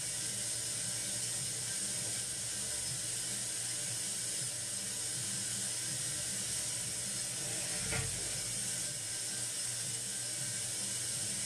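Steady hiss over a low hum, with one short click about eight seconds in.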